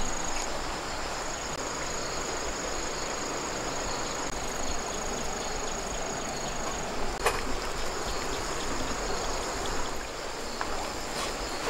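Insects chirring in a steady high-pitched drone over a soft, even background hiss. A single sharp click comes about seven seconds in.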